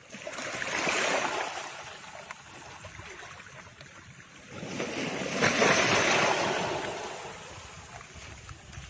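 Rushing surf-like noise that swells and fades twice, once about a second in and again, louder, around five to six seconds in.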